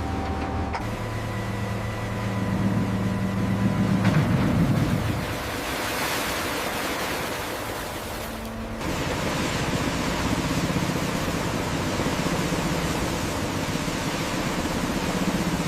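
A crane's engine running steadily under a loud, even rushing noise, with a low hum in the first few seconds. The sound changes abruptly about a second in and again near nine seconds in.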